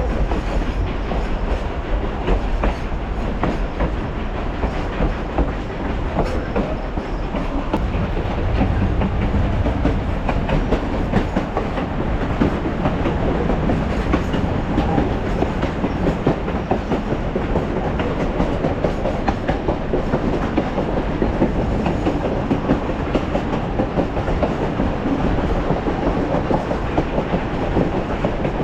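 Durango & Silverton narrow-gauge train rolling along, its wheels clattering steadily over the rails as the cars rattle.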